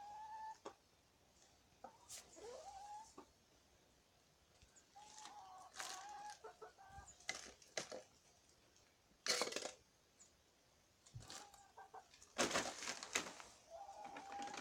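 Domestic hens giving soft, short clucking calls while feeding on spaghetti squash. Several sharp noisy bursts stand out, the loudest about nine seconds in and again around twelve to thirteen seconds.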